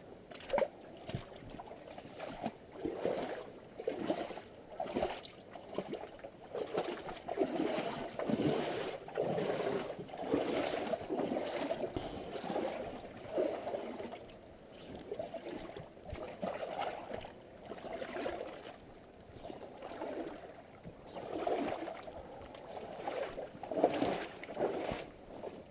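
Wind buffeting the microphone in uneven gusts, with footsteps on the rocky riverbank.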